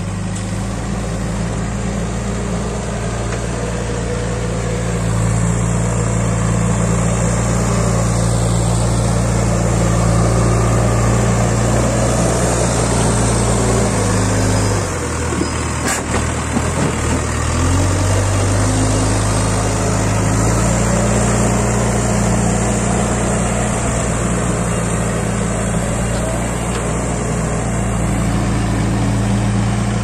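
Backhoe loader's diesel engine running steadily under load while it digs and carries soil, its note rising a few seconds in and dropping briefly around the middle. A single sharp knock about halfway through, as the loader bucket tips mud into a tractor trailer.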